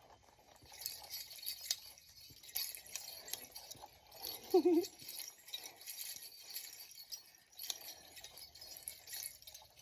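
Light, irregular clinking and rattling of small hard objects, with one short wavering vocal sound a little before halfway.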